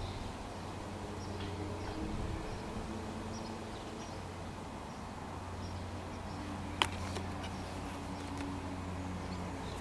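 Faint outdoor ambience: a steady low hum with scattered short bird chirps, and one sharp click about seven seconds in.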